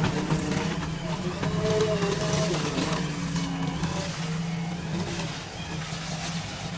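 JCB 3DX backhoe loader's diesel engine running steadily, with voices over it.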